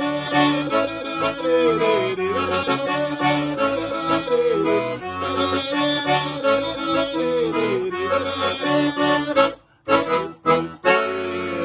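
Piseiro forró band playing an instrumental break, an accordion melody over a pulsing bass beat. Near the end the music cuts out and the band plays a few short stop hits before a held chord.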